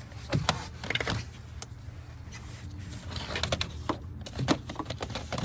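Scattered clicks and knocks of hands and a tool on plastic parts in an engine bay, over a low steady hum.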